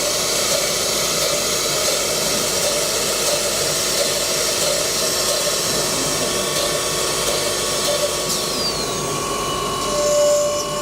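High-speed four-spindle CNC router running: a steady hiss with a few held tones, and a short falling whine about eight seconds in.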